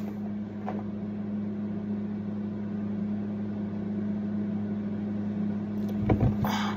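Steady low hum over a faint hiss, with a brief soft noise near the end.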